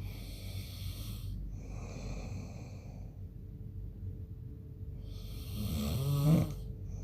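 A sleeping man snoring: two soft, hissing breaths in the first three seconds, then a louder, rattling snore near the end.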